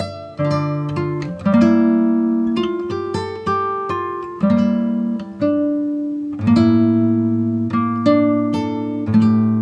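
Background instrumental music of plucked-string notes and chords, each note struck sharply and then fading.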